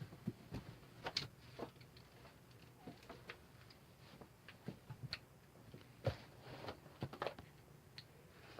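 Faint, irregular clicks and taps, a dozen or so scattered over several seconds, over a low steady room hum.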